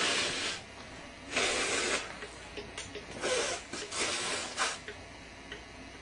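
A person blowing their nose in about five forceful rushes of air, the first two about half a second each and three shorter ones later.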